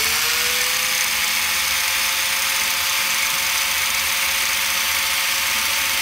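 Electric angle grinder running with no load: its motor whine rises in pitch over about the first second as it winds up to full speed, rated about 11,000 RPM, then holds a steady high whine.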